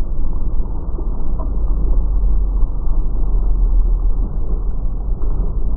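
Freestyle jet ski's 1200cc engine running through flips and spins, heard as a steady, muffled rumble.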